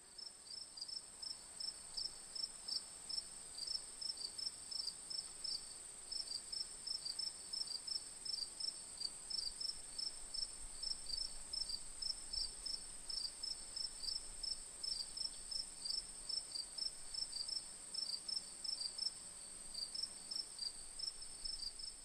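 Crickets chirping: a steady high trill with regular chirps over it, about three a second.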